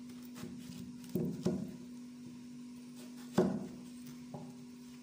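Kitchen knife chopping peeled taro root into cubes on a cutting board: about five knocks of the blade through the firm root onto the board, the loudest about three and a half seconds in, over a steady low hum.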